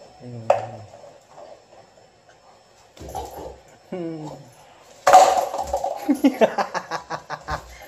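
A Rottweiler crunching a plastic bottle in its jaws: a sudden loud crackle about five seconds in, then rapid crinkling and crackling of the plastic. Earlier come two short, low voice-like sounds.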